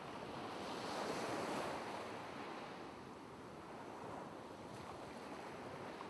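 Ocean surf washing ashore: a steady rush of waves that swells about a second in and then eases.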